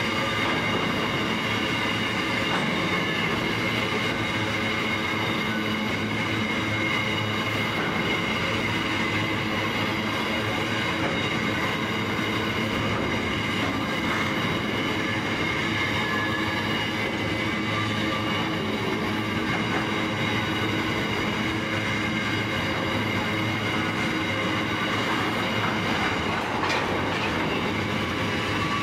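Empty grain hopper wagons rolling past on the rails: a steady rolling rumble of steel wheels on track, with steady high-pitched ringing tones over it.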